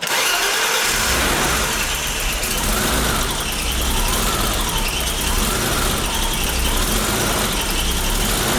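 BMW E34 525i straight-six engine idling steadily, with a faint whine that rises and falls about once a second as the steering is worked. The new power steering pump no longer makes its loud whine and sounds far better.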